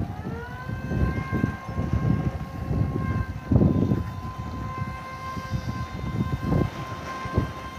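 The tugger's 350-watt, 24-volt DC electric motor whines up to speed in the first second, then holds a steady high whine under load while it moves the airplane by its nosewheel. Under the whine runs an uneven rumble from the tugger's wheels and drive, loudest about three and a half seconds in.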